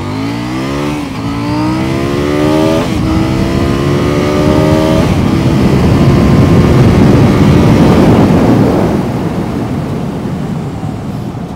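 Motorcycle's 799cc parallel-twin engine at full-throttle acceleration, rising in pitch through the gears with upshifts about one and three seconds in. From about five seconds in, loud wind rush at high speed covers the engine.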